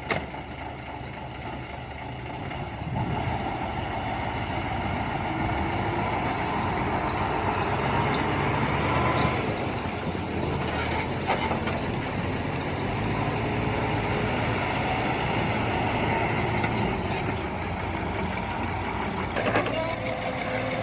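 Heavy diesel engine of construction machinery running steadily, growing louder about three seconds in, with a couple of short knocks.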